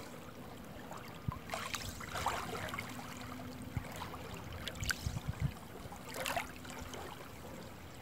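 Faint lapping of calm water against a rocky shore, with a few soft low thumps in the middle.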